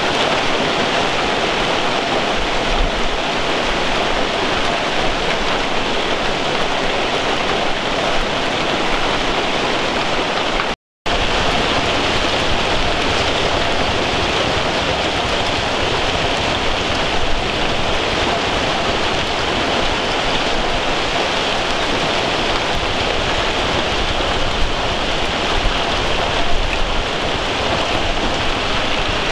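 Heavy hailstorm: dense hailstones and rain pelting the ground, a loud, steady hiss and clatter. It cuts out for an instant about eleven seconds in.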